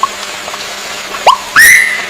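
Bird calls over a steady hiss: a few short upward chirps, then about halfway through one loud whistled note that sweeps up and holds briefly.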